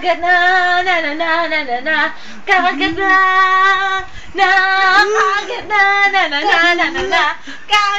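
A high voice singing without accompaniment, held notes with a slight waver, in short phrases broken by brief pauses.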